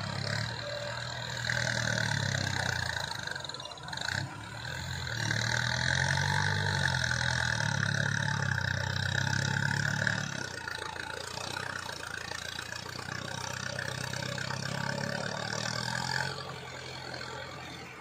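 XCMG XE140 crawler excavator's diesel engine working under hydraulic load as the machine swings, dumps earth and digs, with a high whine over the engine note. The engine pitch rises and falls with each movement, runs hardest in the middle and eases off in the last seconds.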